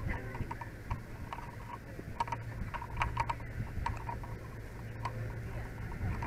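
Light, irregular clicking and ticking of a firefighter's gear and footsteps as he walks on pavement, over a steady low hum.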